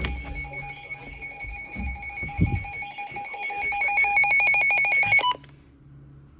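Electronic emergency alert tone: a steady tone that breaks into a fast pulsing trill about three seconds in, then cuts off abruptly a little after five seconds.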